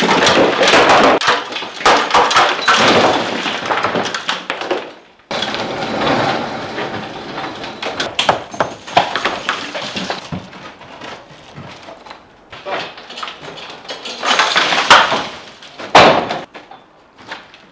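Masonry demolition: bricks and broken mortar being knocked loose and clattering down in an irregular run of knocks and crashes. The sound breaks off abruptly about five seconds in, then comes back as scattered knocks, with two loud crashes near the end.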